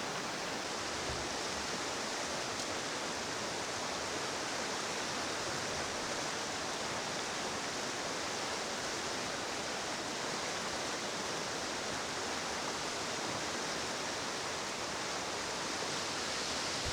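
Mountain trout stream rushing steadily over rocks, an even wash of running water.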